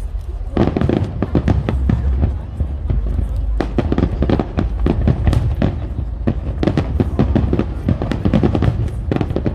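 Fireworks display with rapid, dense bangs and crackles over a low rumble, starting about half a second in.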